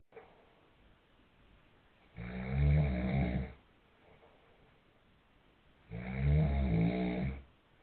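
A man snoring: two long snores, each about a second and a half, a little under four seconds apart.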